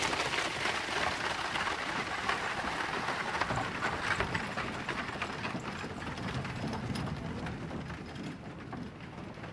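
Horse-drawn stagecoach rattling and clattering along, a dense run of small clicks and creaks from its wheels and body, growing gradually fainter.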